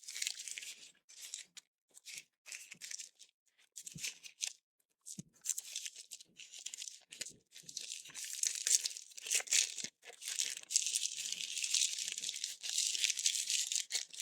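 Packaging being slit with a pocket knife and torn open, with irregular rustling and crinkling that becomes almost continuous in the second half.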